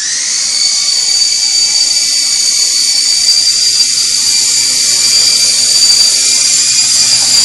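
Small electric motors of a toy RC helicopter spinning up with a rising whine just as it lifts off, then running at a steady high-pitched whine as it flies.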